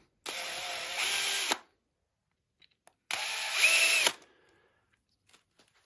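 Cordless drill with a snail countersink bit, running twice in short bursts of about a second each, the second louder, to take the burr off a drilled hole in a crossbow cam housing.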